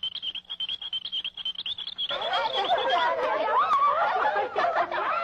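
Cartoon sound effects: rapid clicking under a high, warbling tone for about two seconds, then a busy jumble of squeaky, chattering, giggle-like voices.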